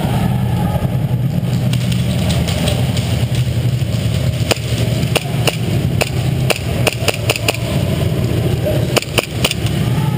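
Airsoft gunfire from a CYMA AK74U electric rifle: about a dozen sharp single shots in quick, irregular succession from about four and a half seconds in until near the end. A steady low hum runs underneath.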